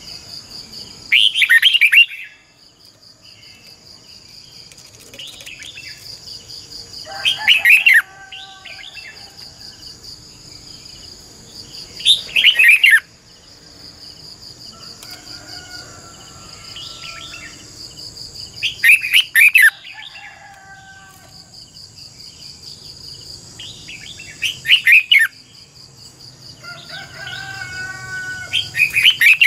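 Red-whiskered bulbul singing: six short, loud, warbling song phrases, about one every five seconds, over a steady high-pitched buzz in the background.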